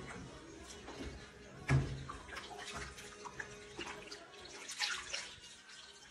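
Curd and whey sloshing and splashing softly in a stainless-steel cheese vat as a hand breaks up the curd at the bottom, so that it sheds its whey. A single thump a little under two seconds in.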